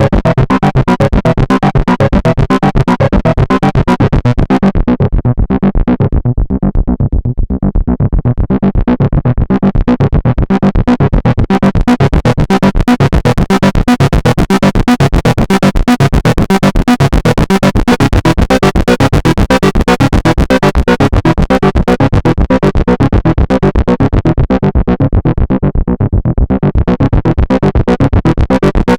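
Behringer Model D analog monosynth playing a fast, driving sequence of repeated notes. The tone turns dark and muffled as the filter closes about five seconds in, then opens back up bright, and closes and reopens again near the end.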